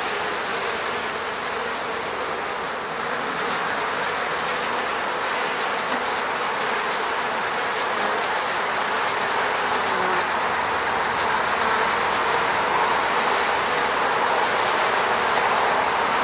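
Many honeybees buzzing around their hive: a dense, steady hum of wingbeats that swells slightly near the end.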